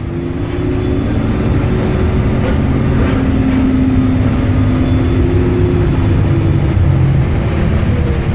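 Inside a moving city bus: the bus engine runs steadily with road noise, its pitch shifting slightly.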